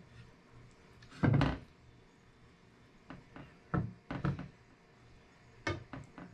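Handling knocks and thuds as a raw beef steak is turned and rubbed on a ceramic plate and an olive oil bottle is handled: one loud thud about a second in, then a scatter of lighter knocks and clicks.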